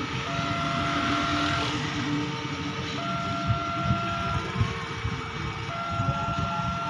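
Railway level-crossing warning alarm sounding: an electronic two-tone signal switching between a higher and a lower tone about every 1.3 seconds, the signal that a train is approaching. Motorcycle and street traffic run underneath.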